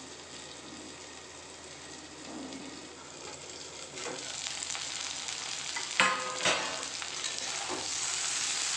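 Raw banana slices sizzling as they shallow-fry in oil in a steel kadai. The sizzle grows louder about halfway through, with two sharp clinks of a spatula against the pan about two-thirds of the way in.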